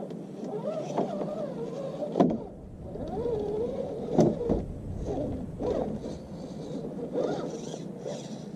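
Redcat Gen8 RC scale crawler's electric motor and gear drivetrain whining, its pitch wandering up and down as the throttle changes. There are two sharp knocks, about two and four seconds in.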